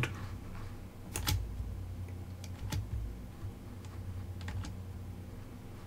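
A handful of separate, irregular key clicks on a computer keyboard, over a steady low hum.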